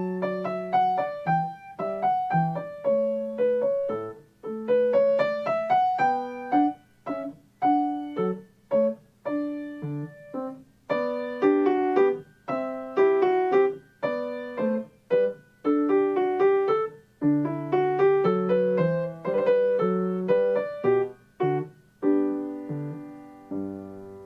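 Solo piano music: a melody of struck notes, ending on a held chord that fades out near the end.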